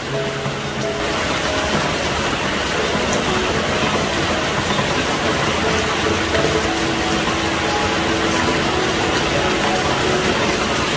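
Heavy rain falling steadily on leaves and ground, a dense even hiss that grows a little louder about a second in.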